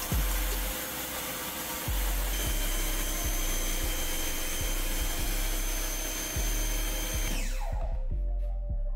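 CAT electric pressure washer spraying through a 40-degree nozzle at about 950 psi: a steady hiss of spray with a thin motor whine. Background music with a bass beat plays underneath. Near the end the washer sound sweeps down and drops out, leaving the music.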